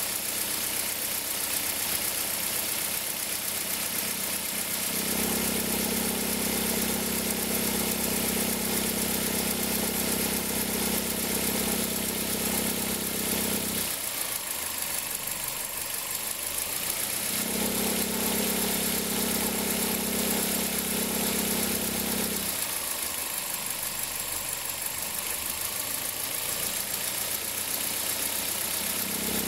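2003 Toyota Corolla's four-cylinder engine idling. A steady low hum comes in about five seconds in, stops, comes back for about five seconds in the middle, and starts again near the end. This is the cold-engine noise that the mechanic traces to the accessory-belt tensioner.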